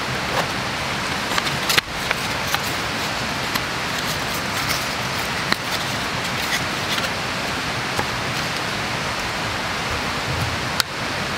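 Steady hiss of water noise, with a few sharp clicks and taps as small wooden and plastic camp gear is handled, the clearest about two seconds in and near the end.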